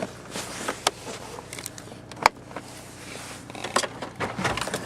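1997 Geo Metro's 1.0-litre three-cylinder engine idling steadily shortly after a cold start, with a few sharp clicks and knocks over it, the loudest about two seconds in.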